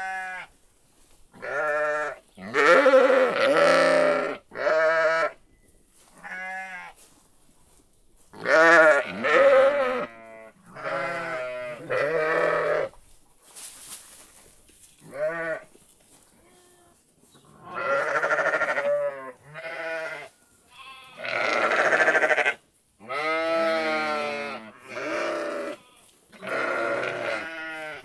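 Sheep bleating over and over: a long series of wavering, quavering calls, each about a second long, with short pauses between them.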